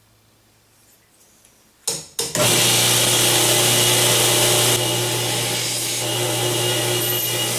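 An electric grinder starts up about two seconds in, after two short bursts, then runs steadily with a low motor hum and a loud hiss as it grinds down the badly damaged tip of a stainless knife blade. The hiss thins a little past the middle.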